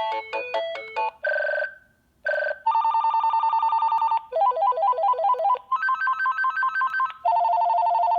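VTech CS6719-15 cordless phone handset playing one ringtone after another through its speaker, as its ringer settings are stepped through: a short melody of beeps, two brief tones, a fast rapid warble, then further trilling electronic rings, each cut off as the next starts.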